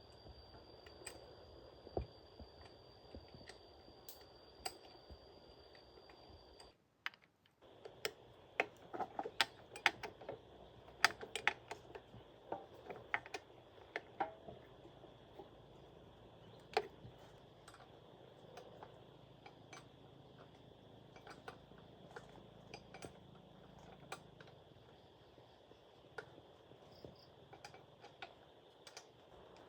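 Irregular sharp clicks and taps, coming thick and fast from about eight seconds in and thinning out after about seventeen seconds, over a faint steady background hiss.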